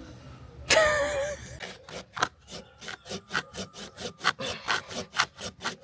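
Small hand saw cutting through a hard log in quick, even back-and-forth strokes, with a short wavering whine about a second in.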